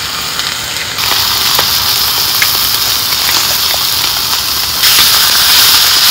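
Ham slices sizzling on a griddle plate over a portable gas stove: a steady hiss with small scattered pops, stepping up louder about a second in and again near the end.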